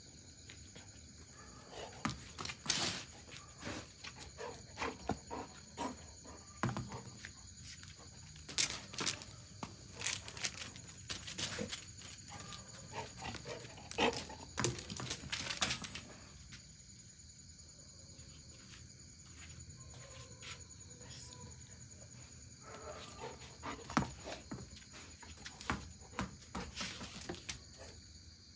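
Golden retriever scrambling and playing on a wet concrete terrace: irregular bursts of paw steps, scuffs and knocks, busiest in the first half and again near the end, with a quieter pause between. A steady high chirring of insects runs underneath.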